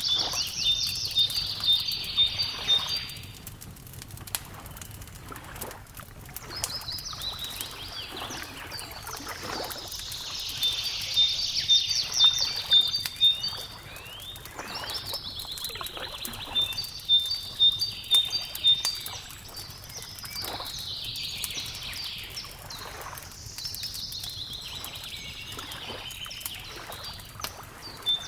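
Songbirds singing phrases every few seconds, each a falling sweep into a quick trill of repeated notes, over the light crackle of a wood fire.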